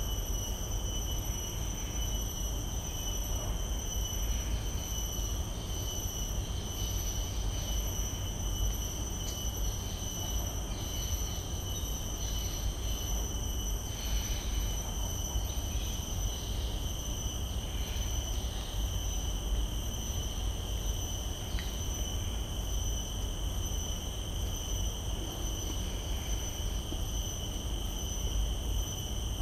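A steady insect chorus in the style of crickets: a continuous high-pitched drone at two fixed pitches that never breaks. A constant low rumble sits underneath.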